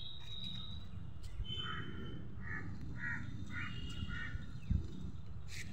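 A crow cawing five times in a row, evenly spaced, over a steady low rumble. A single dull thump comes near the end.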